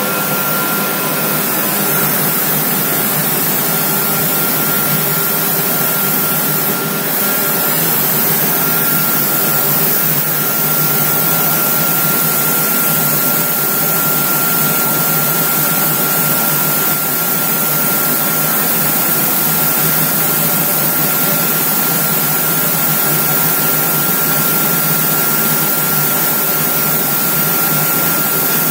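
Homag CNC machine running steadily: a loud, even hiss with a steady high whine over it, unbroken throughout.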